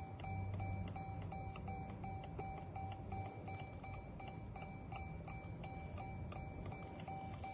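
Rapid, even electronic beeping, a short chime tone repeating about two to three times a second over a low steady hum, typical of a car's warning chime or a key programmer while a key fob is programmed.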